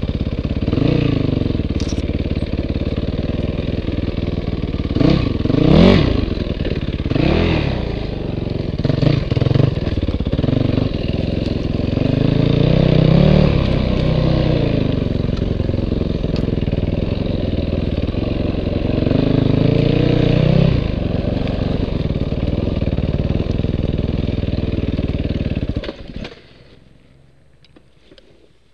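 Dirt bike engine running under riding, revving up and down repeatedly with some clatter. Near the end the engine sound cuts off suddenly, leaving it much quieter.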